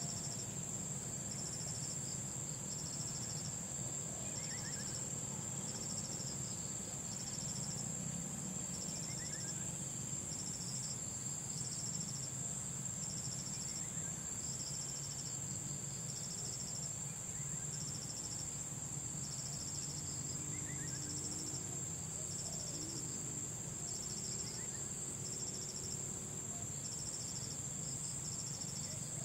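Insects trilling: one steady high-pitched trill, with a second, lower trill that comes and goes about once a second. A few faint falling chirps and a steady low rumble sit underneath.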